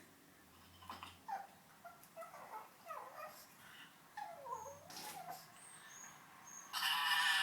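Pug making a string of short, squeaky, dolphin-like cries that slide up and down in pitch, then a louder, longer, harsher cry near the end.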